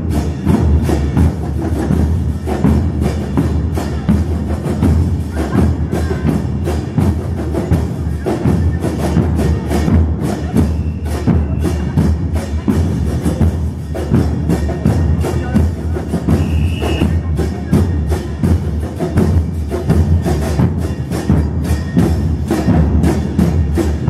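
Murga drum line of bombos con platillo (bass drums with a cymbal mounted on top) beating a fast, dense, unbroken dance rhythm, heavy deep drum hits mixed with cymbal crashes.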